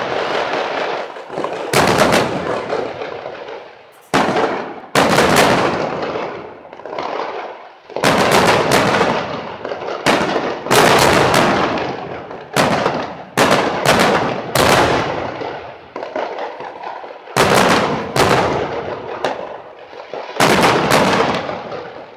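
Aerial firework shells bursting one after another, each loud bang trailing off in a long rolling echo, some coming two or three in quick succession.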